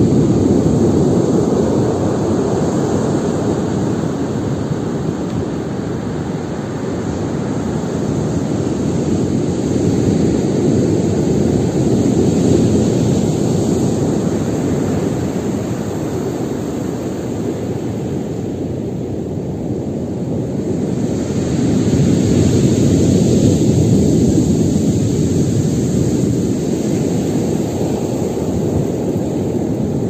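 Stormy Black Sea waves breaking in a continuous heavy wash that swells and eases slowly, loudest around the middle and again past twenty seconds in.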